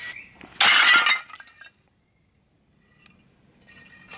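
Stacked roof tiles smashed by a heavy blow: a sudden loud crash of shattering tiles and clattering shards about half a second in, dying away within about a second. A single sharp knock near the end.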